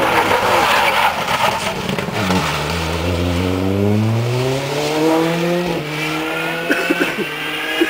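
Historic rally car engine accelerating hard away from a corner. After a rush of noise as the car comes through the bend, the engine note climbs steadily, drops at a gear change about two-thirds of the way in, and climbs again. A few sharp pops come near the end.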